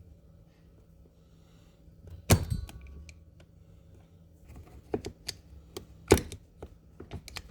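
Metal tools and car parts being handled and set down: a handful of separate clanks and knocks, the loudest about two seconds in with a short metallic ring, another about six seconds in, and light clicks near the end.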